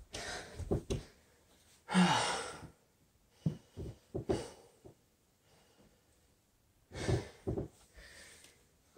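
A man breathing hard from exercise: several heavy, noisy exhales and sighs, the loudest about two seconds in and another near the end, with a few short knocks around the middle.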